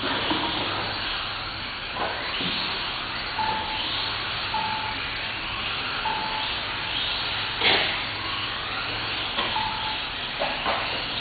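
Several 1/18-scale electric RC cars racing, their motors whining up and down in pitch as they accelerate and slow, over a steady hiss. Short beeps recur every second or so, and there are a few sharp knocks, the loudest about three-quarters of the way in.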